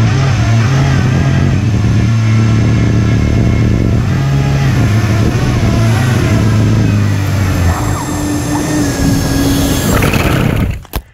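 RC hovercraft's HP server fans running at speed: a loud, steady hum with a whine that bends up and down in pitch as the throttle changes. The sound drops away suddenly near the end.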